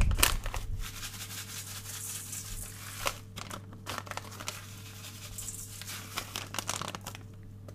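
Dry seasoning being shaken from a crinkly packet onto raw potato wedges: a rustling, crinkling hiss for the first few seconds, then a few light clicks and taps as the packet is handled.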